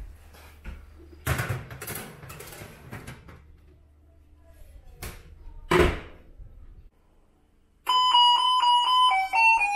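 Metal baking tray clattering as it is slid onto an oven rack, then the oven door shut with a thump. Near the end an electronic doorbell plays a chiming tune of quick repeated notes that step in pitch.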